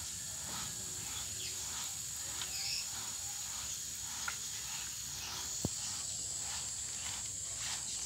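Sand being sifted by hand through a wooden-framed wire screen shaken back and forth, a soft rhythmic hiss about twice a second. Behind it, a steady high drone of insects, and one sharp tick about five and a half seconds in.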